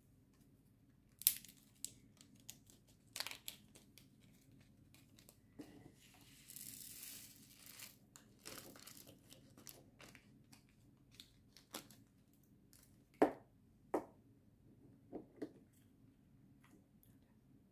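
Small plastic bags of diamond painting resin drills crinkling and rustling, with a stretch of rustle about six to eight seconds in, and scattered sharp clicks of small plastic storage containers being handled and their lids snapped, the loudest about a second in and near thirteen seconds.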